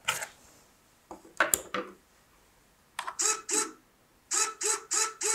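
Small hobby servo motor mounted in a cardboard model, sweeping back and forth on a test run: a short whirring buzz repeated about four times a second, starting about three seconds in after a few light handling knocks.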